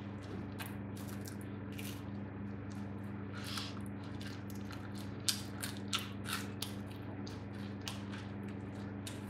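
Bread torn and pulled apart by hand, many small irregular crackling clicks, a few sharper ones about five to six seconds in, over a steady low hum.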